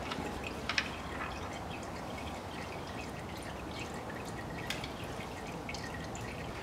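Automatic transmission fluid trickling and dripping from the drain hole of a ZF six-speed automatic gearbox into a metal catch bowl, with scattered irregular drip ticks over a steady hiss.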